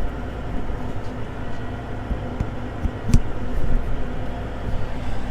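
Challenger MT965C track tractor running, a steady engine drone heard inside the cab, with a sharp click about three seconds in.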